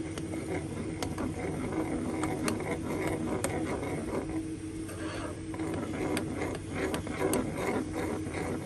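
A metal spoon stirring quickly in a small stainless-steel saucepan of thick food, scraping the bottom with frequent short clinks against the sides. A steady low hum runs underneath.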